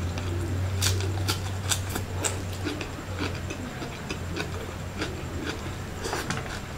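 Hand-eating mukbang sounds: crisp snaps as a lettuce leaf is torn by hand, then wet mouth clicks and smacks as a handful of rice and fish is eaten, over a low steady hum.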